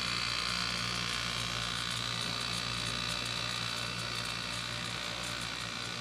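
Hermetic refrigeration compressor running on a training rig, a steady electrical hum with a faint high hiss above it.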